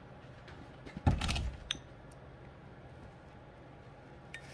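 Wet cat food being scooped from a foil tray with a plastic spoon and set onto a plate: a short scraping clatter about a second in, then a sharp click with a brief ringing note, and a faint click near the end.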